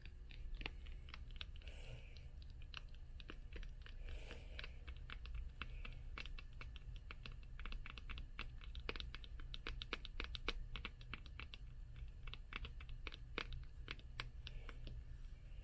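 Light, rapid tapping on the covers and spines of old hardcover books: many quick, crisp taps in irregular runs, thickest in the second half.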